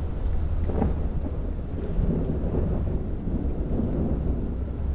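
Rain falling steadily on a wet street, with a low rumble of thunder that swells about two seconds in.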